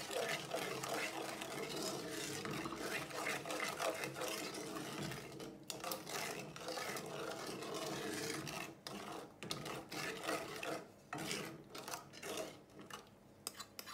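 Wooden spoon stirring a runny mixture of melted butter, sugar and beaten egg in a metal saucepan, scraping against the pan in quick continuous strokes. The strokes become more broken and separate in the last few seconds.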